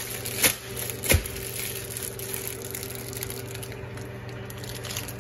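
Microwave oven running with a steady hum while heating food, with three sharp knocks in the first second or so.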